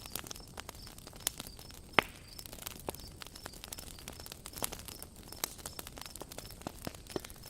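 Campfire burning: wood crackling and popping in irregular sharp snaps, with one louder pop about two seconds in, over a faint high chirping that repeats steadily.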